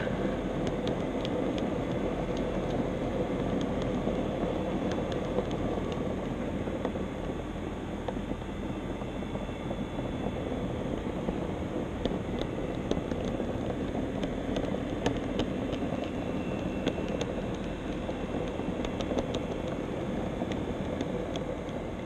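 HO scale model trolley running along its track, heard from on board: a steady motor and wheel whir with scattered light clicks from the wheels on the rails.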